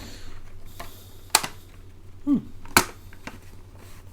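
A few sharp clicks of a mechanical keyboard's clip-on case being handled, three in all, with a short falling squeak a little after the first.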